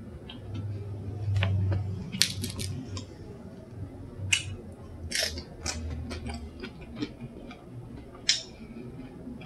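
Close-up chewing of tortilla chips loaded with cheese, with scattered sharp crunches and a low hum during the first couple of seconds.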